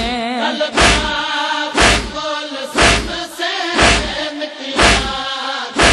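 Saraiki noha lament: a young male voice chanting a mournful melody over matam, rhythmic chest-beating heard as a heavy thump about once a second.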